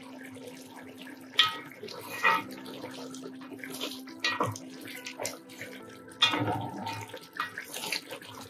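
Thick mutton curry simmering uncovered in a metal handi, bubbling with a few sharp pops. Partway through, a spatula stirs it and scrapes the pot.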